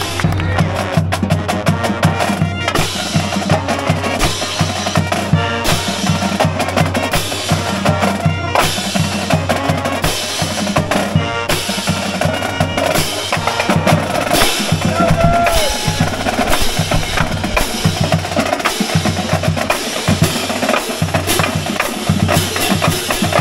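Pep band drum section playing a continuous rhythm on snare drums, bass drum and hand-held crash cymbals.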